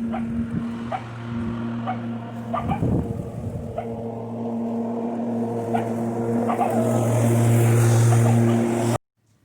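Ryobi 40-volt battery lawn mower running while mowing: a steady electric motor and blade hum. It grows louder over the last few seconds, then cuts off suddenly near the end.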